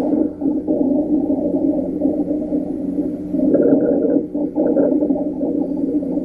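Breath sounds heard through a stethoscope, with a continuous musical wheeze of several steady tones at once, dipping briefly about four seconds in.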